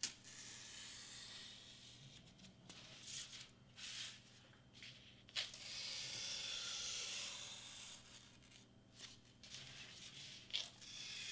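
Craft knife blade drawn through foam board, a faint scratchy hiss in several long strokes with a few short clicks between them.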